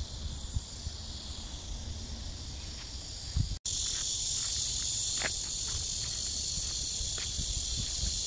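Steady chorus of insects, an even high-pitched drone, with soft footsteps underneath. The sound cuts out for a moment about three and a half seconds in, then the insects come back louder.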